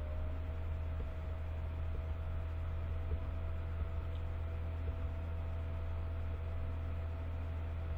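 Steady low electrical hum with a thin steady higher tone above it, the background noise of the recording, and a few faint clicks.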